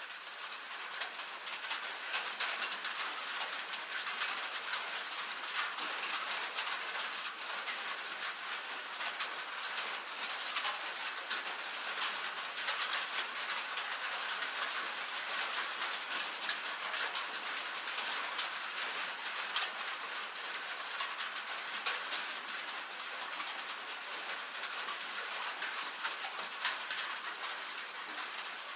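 Light rain pattering on a metal roof: a dense, steady stream of fine, crisp drop ticks, swelling in over the first couple of seconds.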